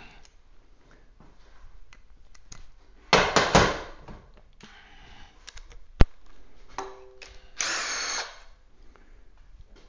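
A handheld power tool running in two short bursts, about three seconds in and again near the end, backing an ARP connecting-rod bolt out of the 454 big-block's rod. A single sharp click falls between the bursts.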